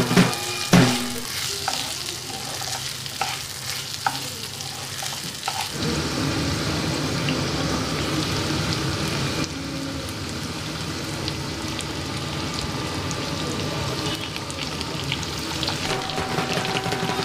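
A spatula stirring rice as it dry-fries in a pan, with a few scrapes and clicks. About six seconds in, cauliflower, potato and pumpkin pieces frying in hot mustard oil in a metal wok give a steady sizzle.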